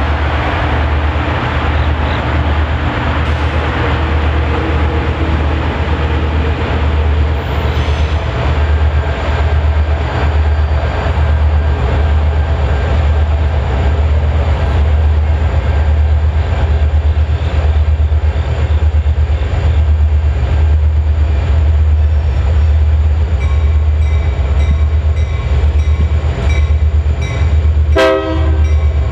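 A pair of EMD GP39-2 diesel locomotives, turbocharged 12-cylinder 645 engines, working a freight train as it approaches, with a deep steady engine rumble. About a second before the end the locomotive horn starts blowing, sounding for the grade crossing.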